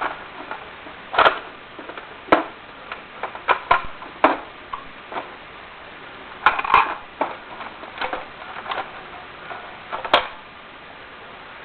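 Irregular sharp plastic clicks and clacks from handling a Nerf Longshot blaster, a few of them louder knocks.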